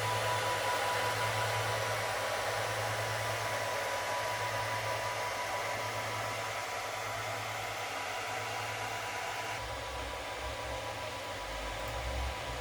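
Steady fan-like whirring hiss from running electrical machinery, with a constant high tone and a low hum. About ten seconds in the hiss becomes duller and uneven low rumbles join it.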